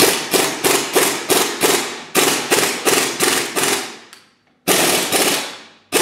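Half-inch pneumatic impact wrench hammering on a rust-seized lower rear shock bolt, about five blows a second, in three bursts with short pauses between. The bolt does not break loose; it will need heat from a torch.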